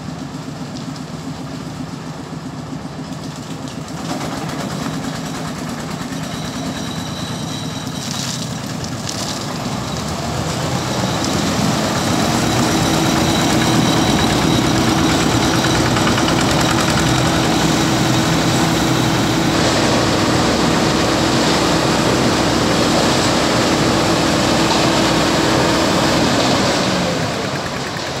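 Diesel engines running: a concrete mixer truck with its drum turning while it fills a small site dumper, and the dumper's own engine close by. The sound grows louder about a third of the way in, holds a steady hum, and drops away near the end.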